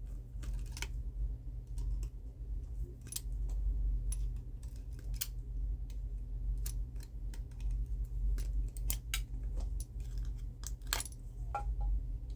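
Irregular light clicks and taps of a die-cast toy car and its plastic packaging being handled, over a steady low hum.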